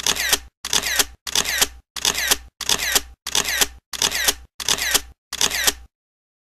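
Camera shutter and motor-drive sound, repeated about nine times at about one and a half a second, each click cut off sharply, then stopping abruptly.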